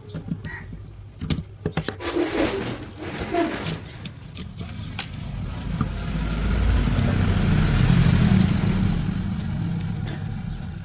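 Scattered metallic clinks and rattles, then a low rumbling noise that swells over several seconds and fades again near the end.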